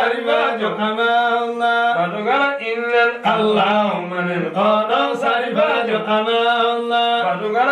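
Men's voices chanting a qasida, a devotional poem, in long held notes with ornamented, bending phrases and brief breaks between lines.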